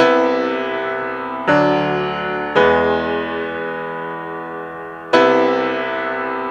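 Background music: piano chords struck four times, each ringing on and slowly fading before the next.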